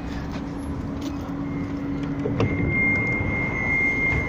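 Blackpool tram standing at the stop with its doors open: a steady low hum, a few knocks as someone steps aboard, and the door warning tone, a steady high beep that starts about a second and a half in and gets louder about a second later, signalling that the doors are about to close.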